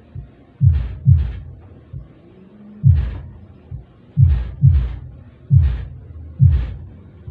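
Subwoofer of a small home sound system playing music on the bass channel alone, with the mids not yet switched in: a run of deep thumps, each dropping in pitch, many of them in pairs.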